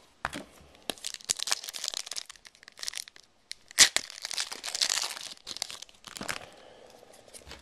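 A trading-card pack wrapper being torn open and crinkled by hand, with crackling tears in two bouts, about a second in and again about four seconds in.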